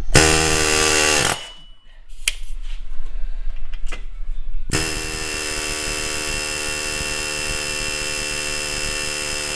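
Pneumatic air chisel hammering on a rusted-in wheel bearing hub assembly. It buzzes in a burst of about a second, then there are some rattles, then a steady buzz of about five seconds. The chisel is working the seized bearing to rotate it loose, and it is moving a little.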